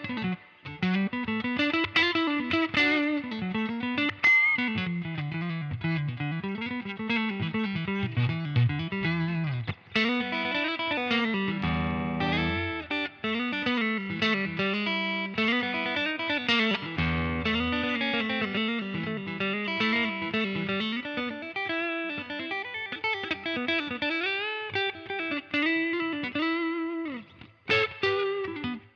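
Electric guitar, a Fender '56 Stratocaster played through a UAFX Dream '65 Reverb amp emulator pedal: a lead line of single notes with bends and slides, with a couple of fuller chords in the middle.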